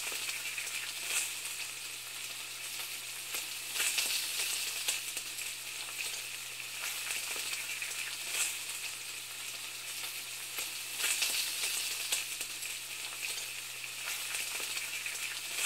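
Food sizzling in a hot pan: a steady high hiss with scattered irregular crackles.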